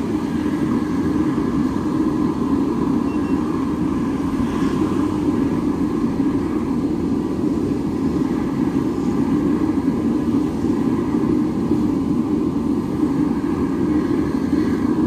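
Waste-oil burner firing at full flame: its electric blower and the oil flame jetting from the burner make a steady, even rushing noise.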